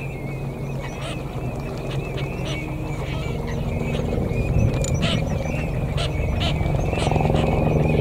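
Ducks calling on a pond, with short calls scattered through. Under them runs a steady low hum that grows louder toward the end.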